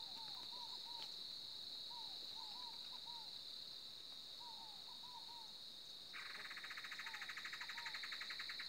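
Faint countryside ambience: a steady high-pitched insect drone, with short rising-and-falling animal calls repeated in twos and threes, and a fast buzzing insect trill joining about six seconds in.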